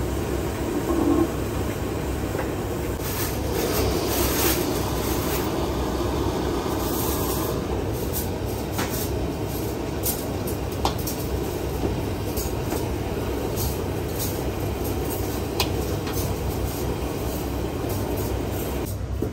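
Gas ring burner running steadily with a large flame under a small pot of bubbling frying oil, with a few sharp clicks here and there.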